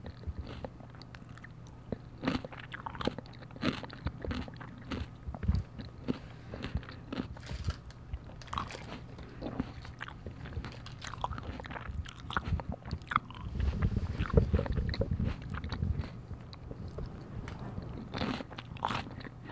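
Close-miked chewing and crunching of salad at a furry windscreen microphone, with wet mouth clicks and irregular bites. A little past the middle there is a louder, muffled stretch lasting a couple of seconds.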